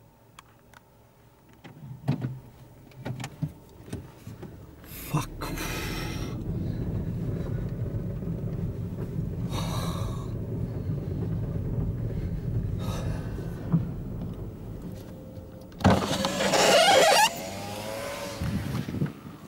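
A car driving on a gravel road, heard from inside the cabin. After a few clicks, the engine and tyres set in at about five seconds with a steady low rumble, broken by short hissy bursts. About sixteen seconds in comes the loudest sound: a second-long rush with a rising whine.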